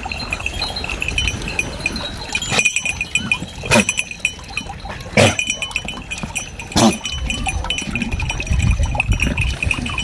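Goats bleating on a farm, with four short loud cries standing out through the middle, over a steady high-pitched tone.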